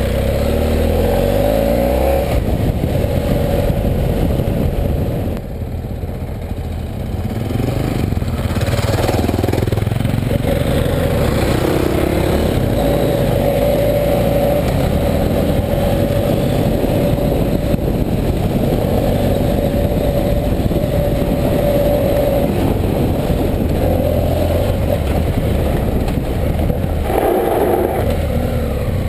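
BMW F 800 GS's parallel-twin engine running as the bike is ridden over a dirt track, with wind and road noise. The engine rises in pitch in the first couple of seconds, eases off about five seconds in, and picks up again a few seconds later.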